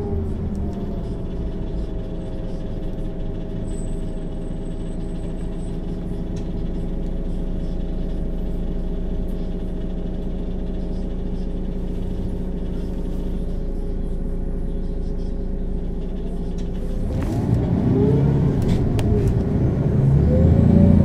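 Mercedes-Benz O 530 G Citaro articulated bus's diesel engine running steadily at low revs. About seventeen seconds in, the revs climb and drop back repeatedly as the bus pulls away and its ZF gearbox shifts up through the gears.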